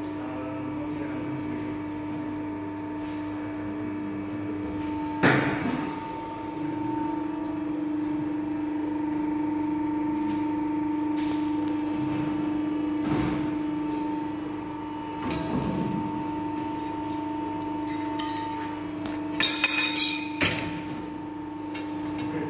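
CNC press brake running with a steady machine hum from its motor, broken by sharp knocks: one loud knock about five seconds in, a few more around the middle, and a quick burst of several near the end as sheet metal is worked in the brake.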